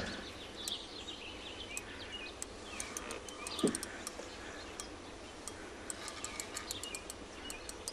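Birds chirping in short calls, with scattered faint sharp clicks throughout.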